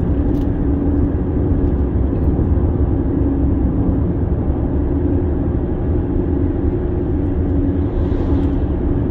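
Road and engine noise inside a car cruising at highway speed: a steady low rumble with a steady hum.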